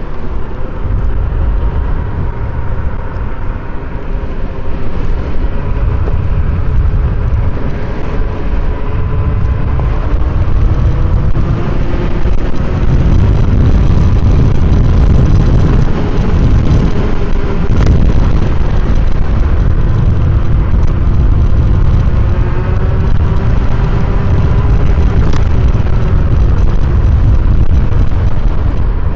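Yume Predator 72-volt electric scooter being ridden: loud wind and road rumble with a faint motor whine that slowly rises and falls with speed. The rumble grows heavier about twelve seconds in.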